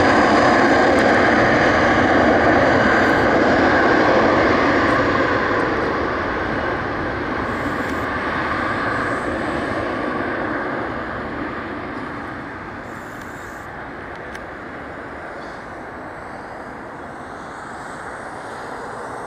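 Boeing 737-400's twin CFM56 turbofan engines at takeoff power: a loud roar with a steady whine in it. It fades as the jet accelerates away down the runway, dropping off noticeably about a third of the way in and again past the middle.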